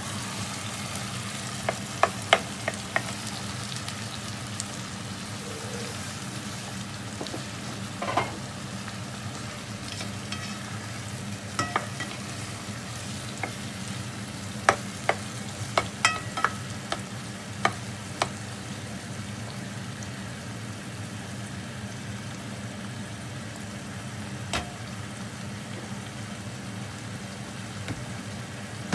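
Chicken pieces frying in a pot of sautéed onion, garlic and tomato with a steady sizzle, while a spatula stirs them, knocking and scraping against the pot in scattered clicks, most of them bunched a couple of seconds in and again around the middle.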